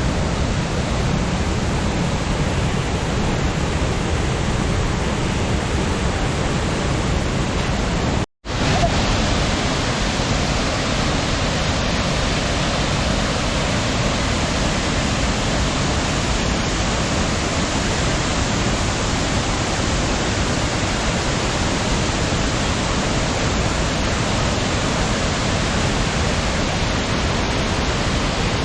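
Steady rushing roar of a waterfall's cascade, an even wash of noise that cuts out for an instant about eight seconds in.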